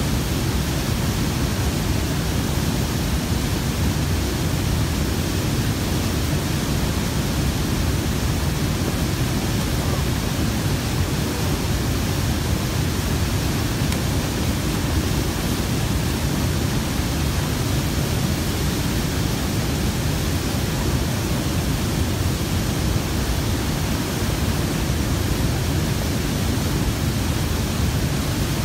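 Water pouring over a dam spillway and rushing through whitewater rapids: a steady, unbroken rush, heaviest in the low end.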